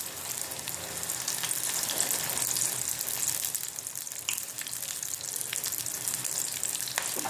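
Grated ginger cooking in cow's ghee and milk in a pan on low gas flame, sizzling steadily with a fine crackle.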